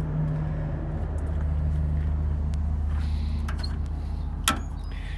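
Steady low hum of an engine running at idle, with one sharp click about four and a half seconds in.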